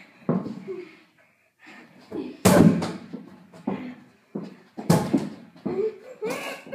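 Two hard thumps about two and a half seconds apart: a large inflatable exercise ball being hurled and slamming into its target.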